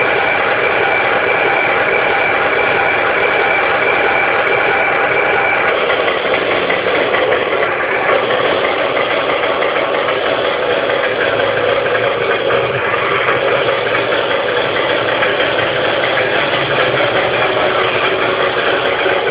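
Toy Caterpillar D10N bulldozer running, giving a steady, unbroken engine-like mechanical drone with a rattle in it.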